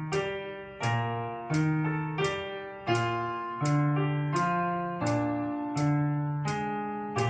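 Piano-toned keyboard music: chords struck at an even pace, about one every 0.7 seconds, each ringing and fading before the next.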